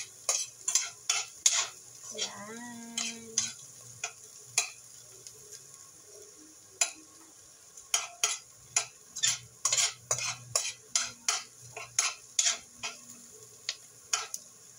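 Metal spoon scraping and clacking against a stainless steel pan as food is stirred and fried, in quick runs of sharp clicks with a sparser stretch in the middle, over a faint sizzle.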